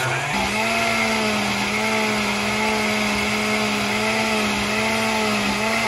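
Countertop jar blender running at full speed, pureeing chopped fruit into a smoothie. The motor spins up at the start, holds a steady whine, and winds down at the very end as it is switched off.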